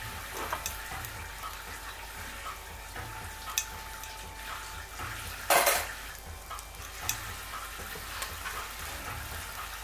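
Diced bacon sizzling gently in a stainless steel stockpot with a little added fat and butter, with scattered small pops and one louder, short burst of noise about halfway through.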